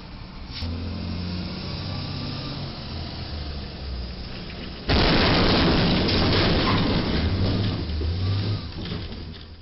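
A box truck's cargo box striking a low steel railroad bridge: a sudden loud crash about halfway through, then about four seconds of the box being crushed and scraped along the girders. Before the crash the truck's engine can be heard running.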